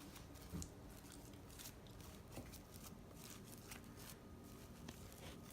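Faint, scattered sticky crackles and soft clicks of fluffy slime being kneaded and stretched in the hands, with a small soft thump about half a second in.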